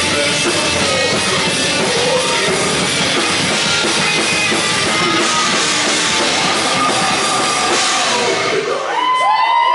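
Live rock band playing loud: electric guitars over a drum kit. About nine seconds in, the drums and low end drop away and a few held, pitched tones rise and ring on.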